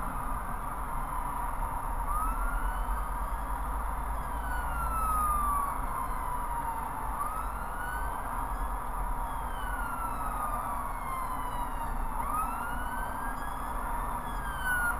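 Emergency vehicle siren wailing, rising and falling slowly in pitch about every five seconds, over steady motorway traffic noise.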